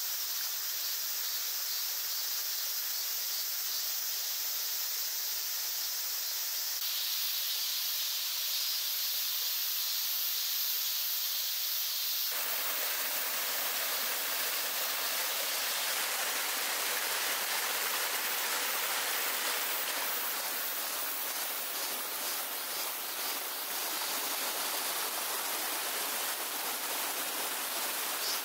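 Chorus of cicadas: a steady, high-pitched buzz that shifts abruptly about 7 and 12 seconds in.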